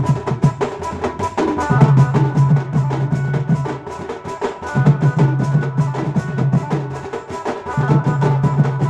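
Folk band of barrel drums, hand drums and a large stick-beaten drum playing a fast, dense khemta rhythm with a keyboard. A low held note comes in and out about every three seconds over the drumming.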